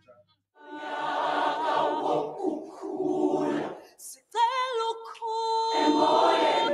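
Large choir singing, starting about half a second in. After a short break a single voice holds a long wavering note, and the full choir comes back in near the end.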